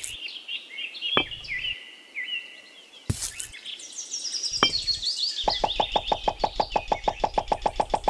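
Birds chirping, with three light knocks as miniature clay bricks are set down in sand. From about five and a half seconds in, a fast, even rattle of about seven strokes a second starts and keeps going.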